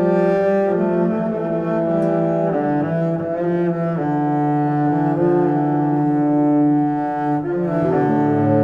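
Background music: a slow melody of long held notes on low bowed strings, each note lasting about a second.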